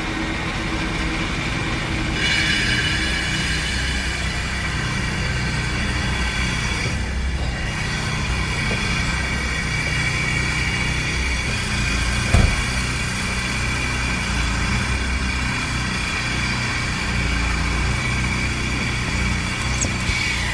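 Conversion van running on the road: a steady engine and road rumble with a constant whine, and a single knock about twelve seconds in.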